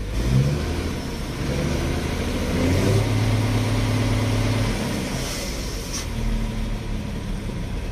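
Dump truck's diesel engine revved from idle up to about 2,000 rpm, held there briefly, then let back down to a lower speed.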